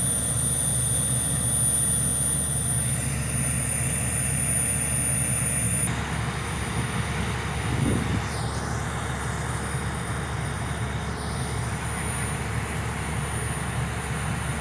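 Diesel engines of heavy construction machinery running steadily with a low rumble and a thin high whine. The higher part of the noise drops back about six seconds in.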